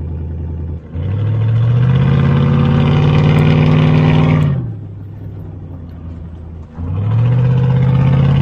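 1998 Chevy pickup engine accelerating under load twice, pulling a flatbed that carries a skid loader. Its note rises and holds, eases off at about four and a half seconds, then rises again near the end. It sounds strong but pulls slowly, all talk and no pull.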